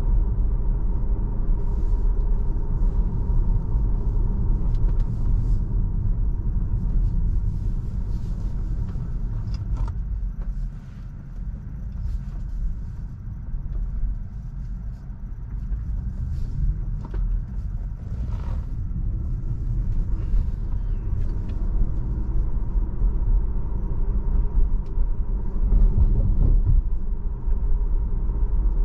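Low road and tyre rumble inside a Tesla electric car's cabin while driving in traffic. It grows quieter for a few seconds about a third of the way in, then builds again.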